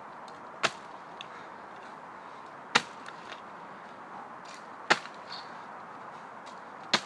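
Feltwell-type sword blade chopping into a splintered birch stump: four sharp strikes about two seconds apart, the first lighter than the rest.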